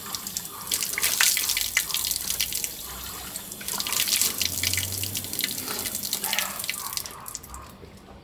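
Water running from an outdoor tap and splashing into a concrete basin while someone washes under it, with sharp drips and splashes. The flow stops about seven seconds in.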